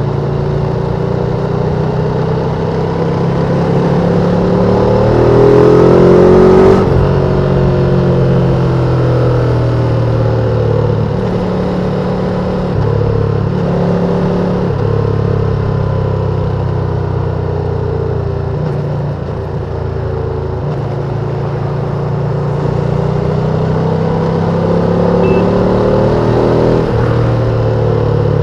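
Ducati Panigale V2's L-twin engine with its stock exhaust, running under way. Its pitch climbs to a peak about seven seconds in and falls off sharply as it shifts up, wanders through the middle, then climbs and drops again near the end.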